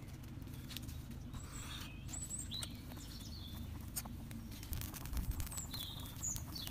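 Wood fire crackling with scattered sharp clicks and pops under a pot at the boil, over a steady low background noise. Several short, high bird chirps come through it, a group about two seconds in and another near the end.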